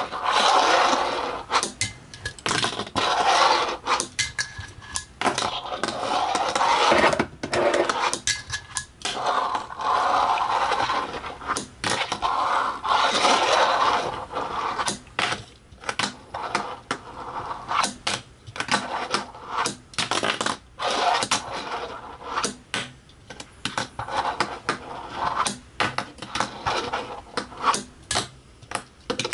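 Fingerboard rolling back and forth on a wooden desktop, its tiny wheels making a scraping rattle, broken again and again by sharp clacks as the board is popped and slapped down onto the wood.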